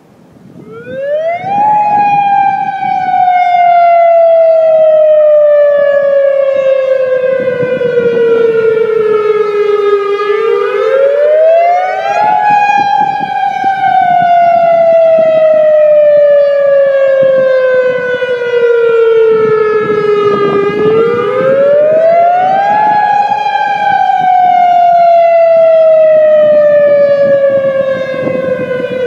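Outdoor emergency warning siren sounding a scheduled test, extremely loud. It starts about a second in with a quick rise in pitch, then falls slowly, and repeats this rise-and-long-fall cycle about every ten seconds, three rises in all.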